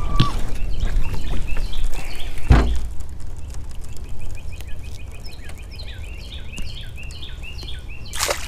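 Wind buffeting the microphone with a single knock about two and a half seconds in, then a small bird singing a quick run of short, evenly repeated chirps.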